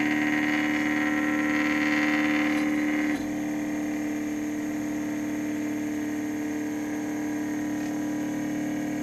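Z-axis stepper motor of an OpenBuilds OX CNC router running under test, a steady pitched whine that starts abruptly; about three seconds in, its higher part drops away and it goes on a little quieter.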